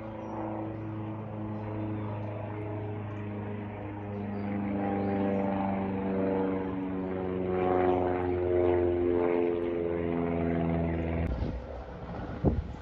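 Propeller aircraft engine passing overhead: a steady low hum with a stack of tones that slowly shift in pitch, growing louder toward the middle. It breaks off sharply about eleven seconds in, and wind noise on the microphone follows.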